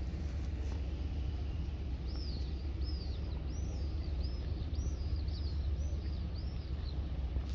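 A bird calling, a run of about ten short arched chirps, roughly two a second, over a steady low rumble.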